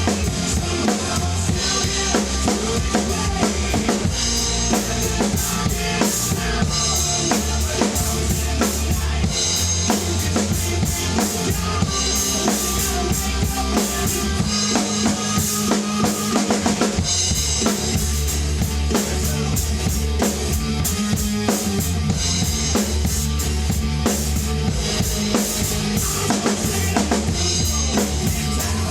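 Rock drum kit played hard along with a hard rock band recording: steady kick drum and snare backbeat with rimshots and cymbals over distorted guitars and bass.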